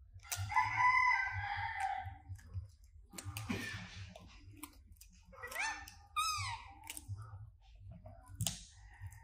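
A rooster crows once near the start, one long call lasting about a second and a half. A few short chirps that rise and fall in pitch follow about halfway through, with scattered small clicks.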